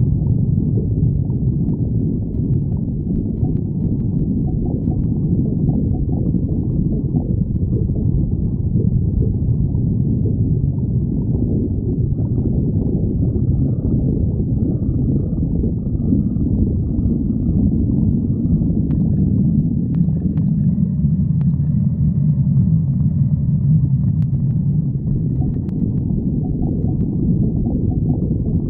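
A stomach growling: continuous low rumbling and gurgling, with faint higher-pitched squeaks coming and going in the middle and later part.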